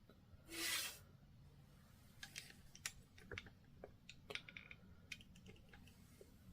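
Faint scattered clicks and taps of a plastic action figure being handled and turned, after a short breathy hiss near the start.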